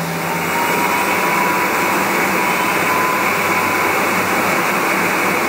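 Doosan Puma V550 vertical turning center with its big table chuck spinning at high speed: a loud, steady rushing noise, with a faint whine that rises slightly in pitch over the first few seconds.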